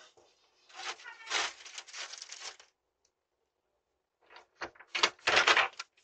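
Rustling and clicking handling noises close to the microphone, broken by a second or so of dead silence, with a few clicks and a louder rustle near the end.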